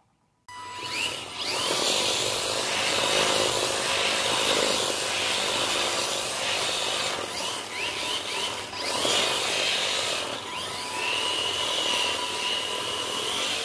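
FTX Hooligan Jnr 1/28 micro RC rally car driving on a laminate floor. Its small electric motor whines, rising and falling in pitch with the throttle, over a continuous hiss of the tyres scrubbing and sliding on the boards. It starts suddenly about half a second in.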